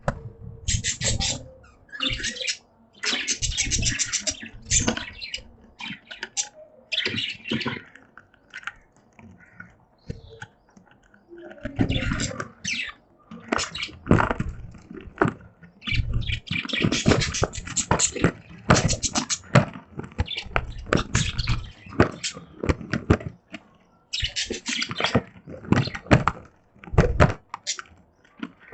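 Budgies chirping and chattering in rapid, rasping bursts with short pauses, mixed with sharp clicks and a few low knocks.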